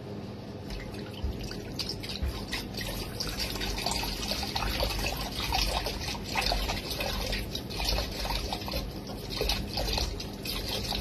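Chicken broth pouring from a 32-ounce carton into a slow cooker, an uneven splashing stream that starts about a second in.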